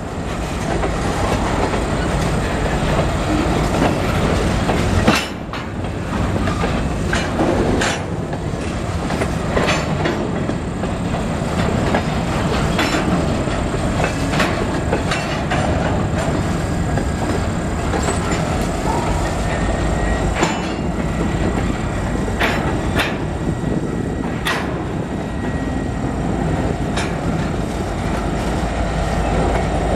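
Freight cars (covered hoppers and tank cars) rolling past close by: a steady rumble of steel wheels on rail, broken by sharp clicks and knocks every second or two.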